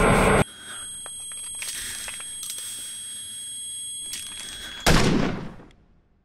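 A loud dense roar cuts off abruptly about half a second in, leaving a quieter backdrop with steady high tones. Near the end a single handgun shot rings out and dies away over about a second.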